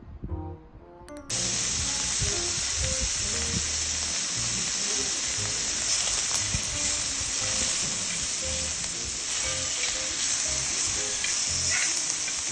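Soft background music, then about a second in thin slices of marbled beef start sizzling steadily in a hot frying pan, with the music continuing faintly under the sizzle.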